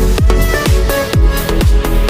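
Electronic dance background music with a steady, pounding kick drum, about two beats a second, under sustained synth tones.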